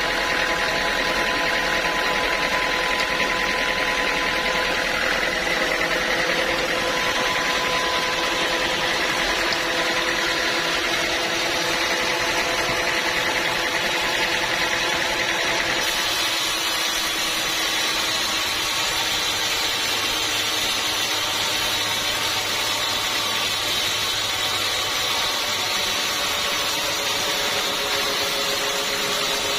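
A sawmill saw running steadily while cutting through a teak log, a continuous machine noise with a few steady tones, its tone shifting slightly about halfway through.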